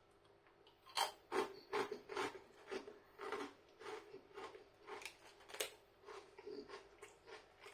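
Chewing crunchy chilli rice crackers: a crisp crunch about twice a second, starting about a second in and growing fainter toward the end.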